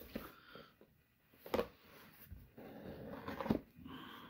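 Handling a taped cardboard box: a few soft knocks, then a small knife slitting the packing tape near the end.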